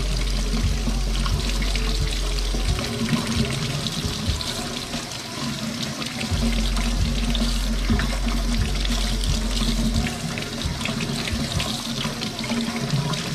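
Kitchen faucet running water over snow crab legs as they are turned and rinsed by hand in a stainless steel sink. Background music with a steady beat plays underneath.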